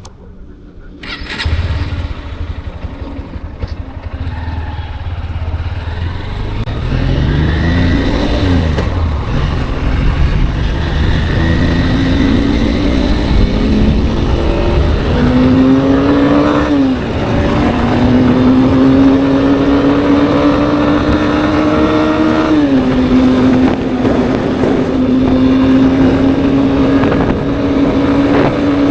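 Honda motorcycle engine coming to life about a second in and idling, then pulling away: its pitch climbs and drops sharply at three upshifts before it settles into a steady cruise with wind rush.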